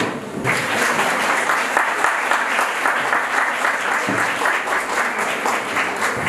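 An audience applauding, the clapping starting about half a second in and keeping up steadily.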